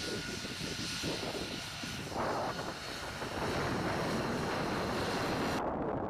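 F-35A's single F135 jet engine running as the fighter taxis: a dense, steady jet noise with a high whine over the first two seconds. Shortly before the end it cuts to wind buffeting the microphone.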